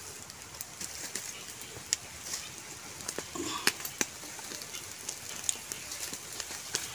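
Wood campfire crackling with scattered sharp pops and clicks over a steady hiss, as charred logs and embers are raked open with a bamboo stick.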